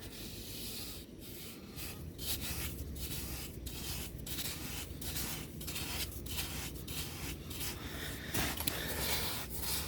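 Gritty scraping of wet sand being dug out, in repeated short strokes about two a second.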